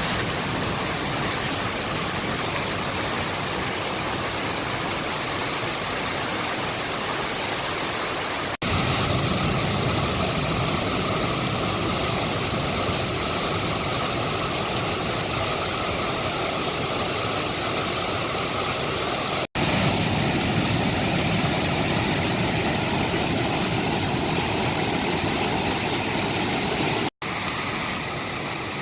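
Rain-swollen mountain stream rushing loudly, a steady even wash of fast water. It breaks off for an instant three times, where one stretch of the stream gives way to another.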